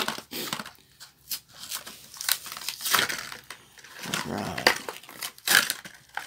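A Hot Wheels blister pack being cracked open by hand: the plastic bubble crinkles and the cardboard card tears, in a string of irregular cracks and snaps.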